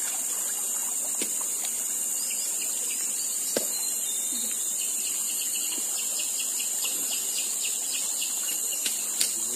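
Steady, high-pitched drone of forest insects, with a few faint clicks.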